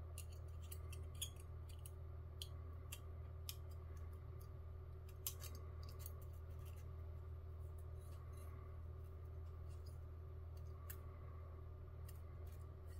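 Hobby knife blade nicking and scraping along the edge of a plastic model truck's bed side, cutting jagged rust-out notches: faint scattered small ticks and clicks, over a steady low hum.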